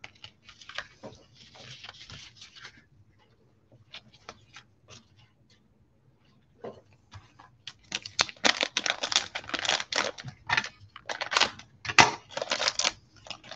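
Light rustling of cards and packaging, then a quiet few seconds with a few small ticks, then from about eight seconds a foil trading card pack wrapper being torn open and crinkled, a dense run of crackles.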